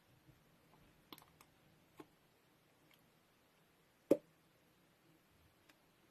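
Slime being pressed and worked by hand, giving a few sparse clicks and pops from air bubbles. The loudest click comes about four seconds in.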